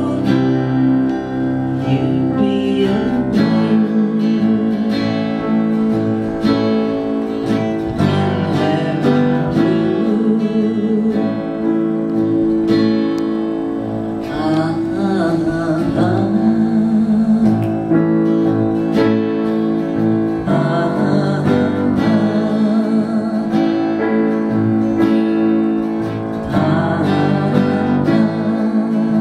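Live acoustic guitar strumming steadily, with a woman's voice singing over it at times.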